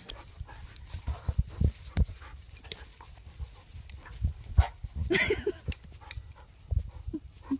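A small dog barking or yipping about five seconds in, amid irregular low thumps.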